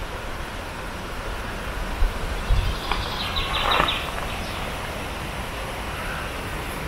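Small river flowing over a shallow pebbly bed: a steady rushing hiss with a low rumble under it. A brief rattling sound comes about three seconds in.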